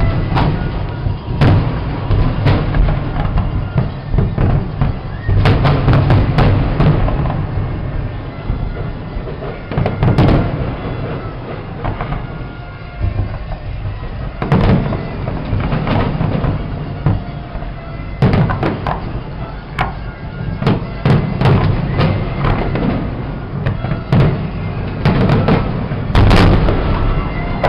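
Fireworks display: an irregular run of booming bursts and sharp bangs in clusters, with music playing underneath.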